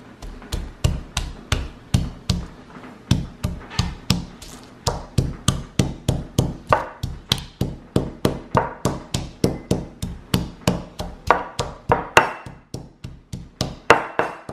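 Stone pestle pounding red chilies and garlic in a stone mortar: a steady run of dull knocks, about three a second, with a couple of short breaks.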